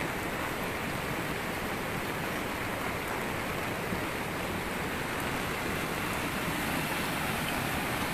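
Steady rushing of a muddy river in flood, with rain falling.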